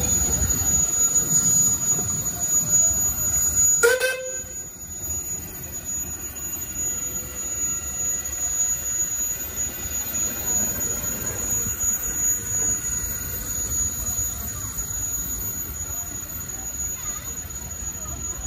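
Steam road roller passing, with its engine's low rumble and one short toot of a steam whistle about four seconds in.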